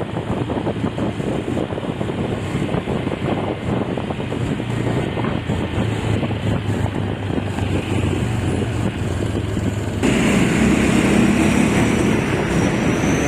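A vehicle running on the road, with steady engine hum and road noise and wind buffeting the microphone. About ten seconds in the sound changes abruptly and gets louder.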